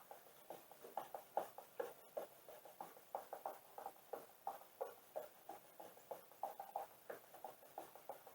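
A cloth with rubbing alcohol wiping a surface back and forth in quick short strokes, about four a second.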